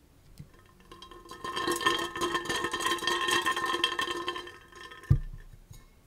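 Stainless steel tumbler handled and shaken, its contents clinking against the metal, which rings, for a few seconds. It is then set down on the desk with a single thump about five seconds in.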